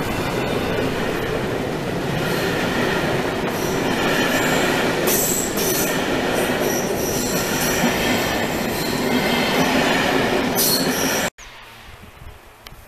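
Passenger coaches of a steam-hauled train rolling past on the rails, a loud steady rumble of wheels on track with high wheel squeals around the middle and again shortly before the end. The sound breaks off abruptly near the end, leaving only faint outdoor background.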